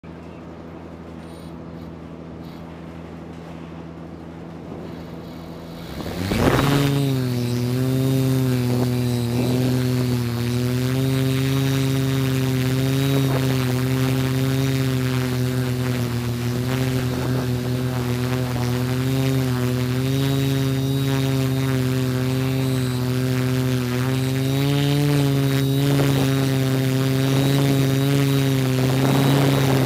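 Multirotor drone's electric motors and propellers. A low steady hum, then about six seconds in the rotors spin up sharply for takeoff into a loud, steady whine that wavers slightly in pitch as the throttle changes.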